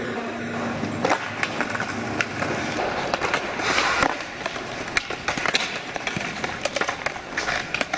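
Skateboard wheels rolling on concrete, with repeated sharp clacks of wheels and decks hitting the ground.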